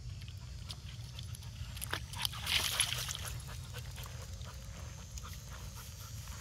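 A dog making short noisy sounds and clicks close by, busiest and loudest about two to three seconds in, over a steady low rumble.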